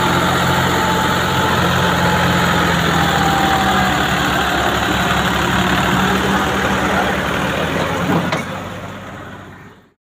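Sonalika DI 47 RX tractor's diesel engine running steadily close by as it pulls a loaded trailer, fading out over the last second or two.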